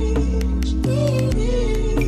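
Background music with a steady beat over a bass line and a melody.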